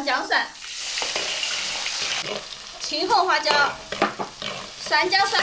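Minced ginger and garlic sizzling in hot oil in a wok, stirred with a metal ladle; the frying hiss runs steadily.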